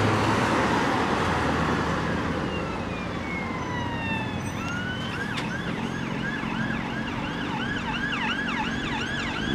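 Emergency vehicle siren approaching through traffic: a slow falling wail about three seconds in, switching about five seconds in to a fast yelp of about two or three sweeps a second that grows louder, over steady road traffic noise.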